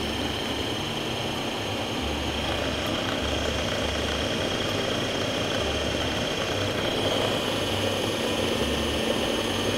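A Philips Cucina compact food processor's motor runs steadily with a constant high whine as it purées cooked lentils with onion and oil, then cuts off at the end.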